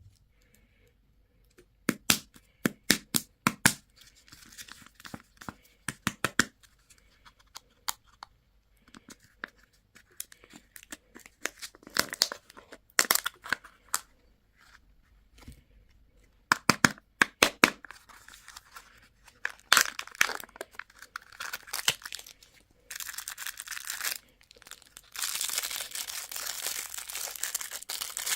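Candy packaging being unwrapped: plastic wrappers crackling and tearing in runs of sharp crackles, turning near the end into a steady dense crinkling rustle.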